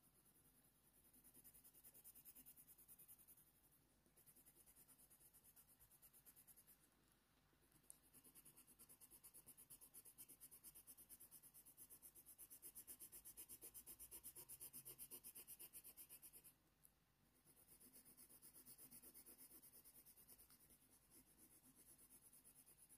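Faint scratching of a Faber-Castell Polychromos coloured pencil shading on hot-press watercolour paper, in quick, regular back-and-forth strokes. It comes in runs: briefly about two seconds in, longest and strongest through the middle, and once more near the end.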